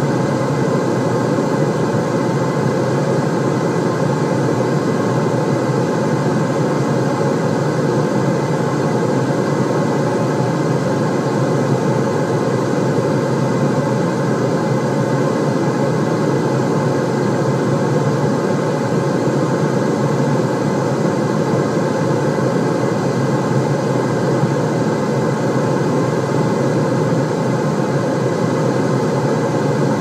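Steady white-noise sound with most of its weight in the low range, a deep even rush that does not change.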